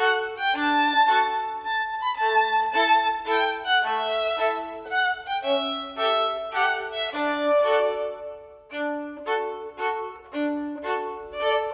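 Instrumental music: a melody of short, quick notes, briefly quieter about eight seconds in.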